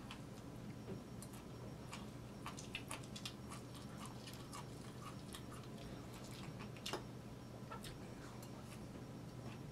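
Metal fork clinking and scraping against a plate in short, irregular clicks, with quiet chewing between bites, over a steady low hum.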